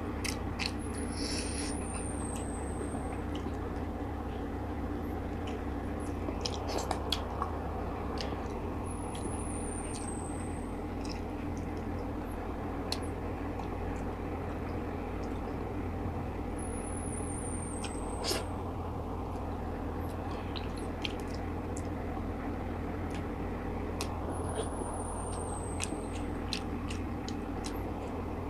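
A person chewing steamed tilapia eaten by hand, with scattered small mouth clicks and smacks over a steady low hum and hiss. A faint high falling chirp recurs about every eight seconds.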